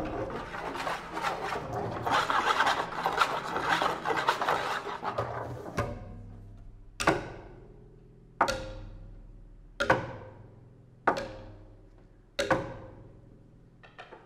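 Double bass played with extended techniques: a dense scraping and rubbing on the instrument for the first six seconds, then a low held tone under five sharp, evenly spaced struck notes about a second and a half apart, each ringing off.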